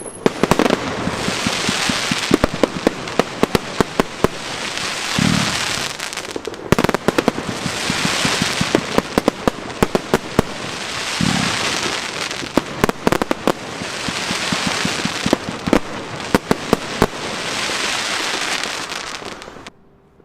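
Fireworks going off: rapid crackling bangs and pops over a swelling hiss, with a couple of deeper thumps. The sound cuts off suddenly near the end.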